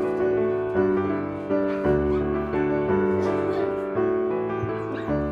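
Background piano music: sustained chords and notes, with a new note struck roughly every half second to a second.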